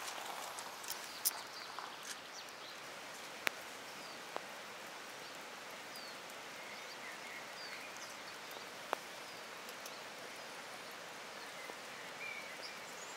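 Steady rain falling, with a few sharp taps of drops hitting nearby, and a few faint, short, high chirps from birds.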